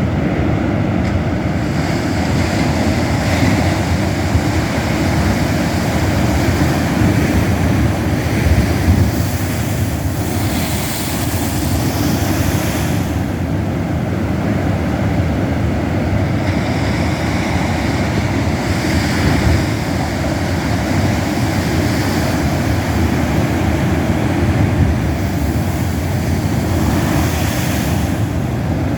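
Pacific Ocean surf crashing against cliffs at king tide: a continuous loud rush of water with waves surging and washing in every several seconds, and wind rumbling on the microphone.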